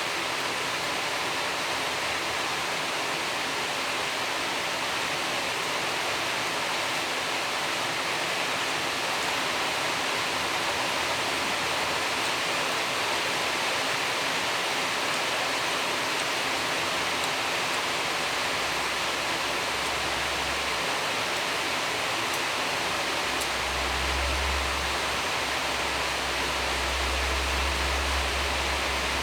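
Steady hiss of background noise with no clear separate events; a low rumble joins it for a few seconds past the middle and again near the end.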